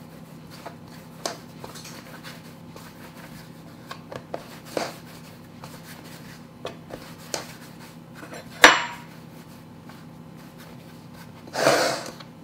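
Hands rolling dough on a wooden cutting board, with scattered light taps and one sharp knock about two-thirds of the way through. Near the end a metal springform pan is slid across the board with a brief scrape.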